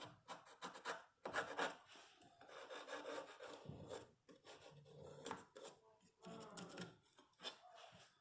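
Quiet, irregular rubbing and scraping strokes on a piece of wood, done by hand in short passes with brief pauses.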